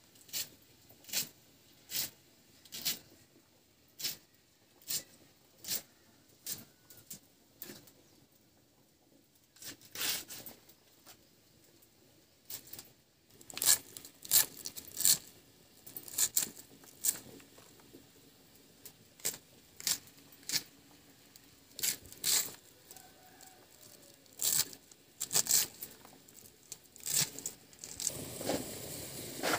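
Crisp cabbage leaves being sliced against a fixed upright bonti blade, one sharp cut roughly every second, quickening and louder in the middle. Near the end a steady sizzle starts as whole boiled eggs fry in hot oil in a metal kadai.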